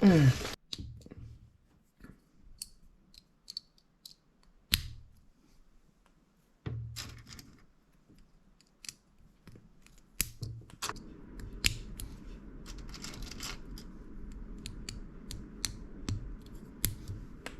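Off-brand plastic building bricks clicking and snapping as they are handled and pressed together, with a scatter of sharp ticks and knocks. From about two-thirds of the way through, a steady low hum runs underneath.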